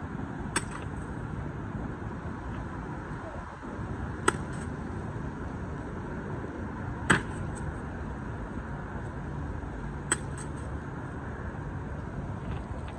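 Cornhole bean bags landing on the boards: four sharp knocks about three seconds apart, over a steady low background rumble.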